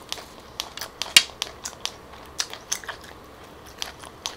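A person chewing fresh rau răm (Vietnamese coriander) stems and leaves: a run of irregular crisp crunches and wet mouth clicks, the sharpest about a second in.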